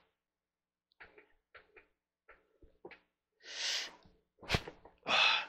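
Faint clicks and rattles of a gaming chair's metal and plastic fittings being handled during assembly, then a short hissing noise, a sharp knock about four and a half seconds in, and another short hiss near the end.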